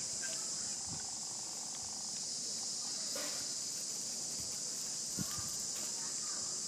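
Steady high-pitched drone of an insect chorus, with a few faint knocks and rustles.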